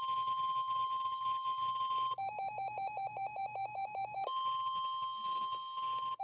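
NOAA Weather Radio warning alarm tone: a steady high tone of about 1050 Hz that signals a warning broadcast is about to follow. For about two seconds in the middle, and again briefly at the end, it gives way to a rapidly pulsing, warbling alert tone.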